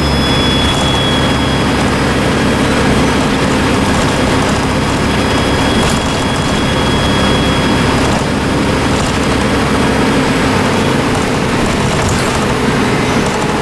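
Dennis Trident II double-decker bus under way: steady engine and road noise with a thin, high turbocharger whistle over it that fades and returns, and a few brief rattles.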